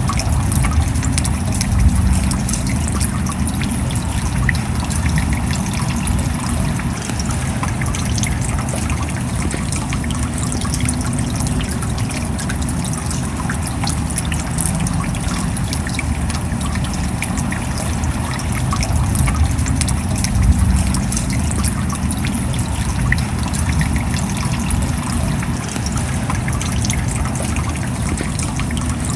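Rain falling steadily: an even hiss dotted with the ticks of countless drops, with water trickling.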